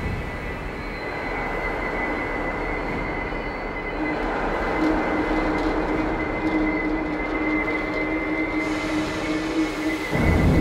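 Electroacoustic sound score: a dense, steady rushing noise with a high held tone, joined by a lower held tone about four seconds in, and a loud low surge near the end.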